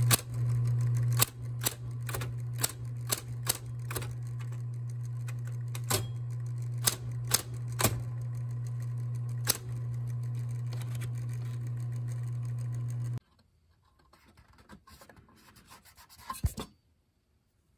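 Commodore 1526 (MPS-802) dot-matrix impact printer printing a test line: a steady hum with a dozen or so sharp clacks at uneven intervals. It stops suddenly about 13 seconds in, leaving only faint handling sounds and a single click near the end.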